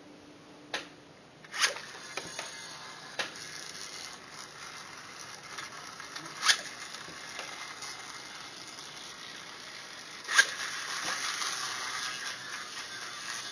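Plastic toy gyroscopes being spun up: sharp, zipper-like rasps, the three loudest a few seconds apart, over a steady whirring hiss from the spinning rotors that grows louder after the last rasp.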